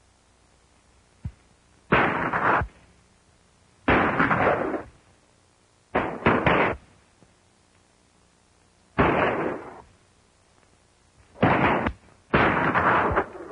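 Gunshots on an old film soundtrack: single shots every two to three seconds, with three in quick succession about six seconds in, each trailing off over about half a second.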